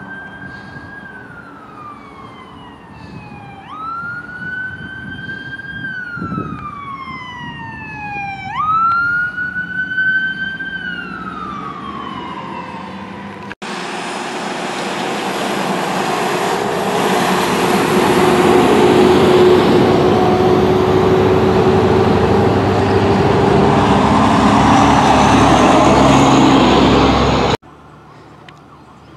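Fire engine siren wailing, its pitch jumping up and sliding slowly down three times, then fading. After a sudden change, a loud steady rushing roar with a low hum builds up for several seconds, typical of a medical helicopter's turbine and rotor, and cuts off abruptly near the end.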